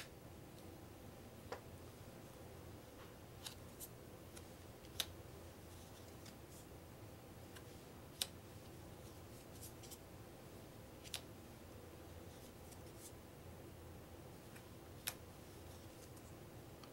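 Game cards being flipped off a stack one at a time onto a wooden tabletop: short, light clicks every second or few, over faint room tone.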